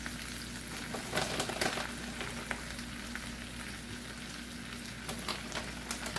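Cast iron skillet of loaded baked potatoes sizzling steadily on the stove as shredded cheese is sprinkled on, with a few louder crackles about a second in.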